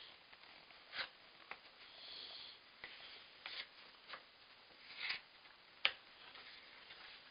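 Light, irregular clicks and scrapes of cardboard jigsaw pieces being handled and pressed into a puzzle board on a wooden table, the sharpest tap about six seconds in.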